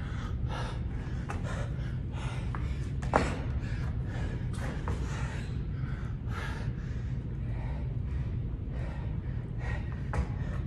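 A man panting hard from exercise: rapid, gasping breaths every half second or so, over a steady low hum. There is a single sharp knock about three seconds in.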